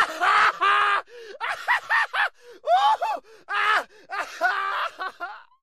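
A man's wordless sobbing and groaning, in short broken cries whose pitch rises and falls in arcs, cutting off abruptly near the end.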